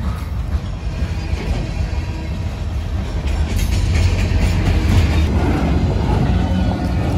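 Freight cars (tank cars and autorack cars) rolling past at close range: a steady low rumble of steel wheels on rail, with clacks as the wheels cross rail joints, growing a little louder partway through.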